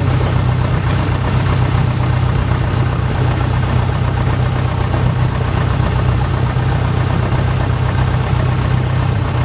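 Robin DR400 light aircraft's piston engine and propeller running steadily at low power while taxiing, heard from inside the cockpit as a constant low drone.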